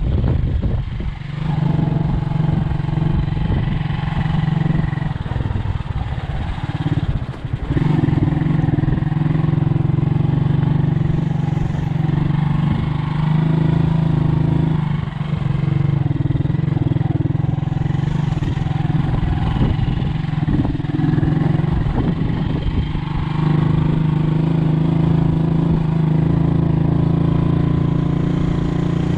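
Small engine running at a steady speed, easing off briefly about three times before picking up again.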